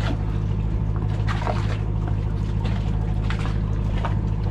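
Steady low hum of a large boat's machinery, with water splashing a few times.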